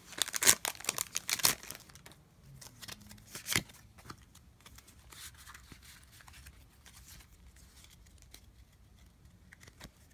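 Foil wrapper of a Pokémon trading card booster pack being torn and crinkled open, loudest in the first second and a half, with a sharp crackle about three and a half seconds in. After that only faint light rustles and ticks as the cards are handled.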